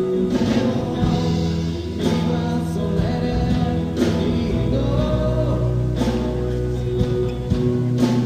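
A band playing a song: singing over drums, bass and guitar, with a strong drum hit landing about once a second.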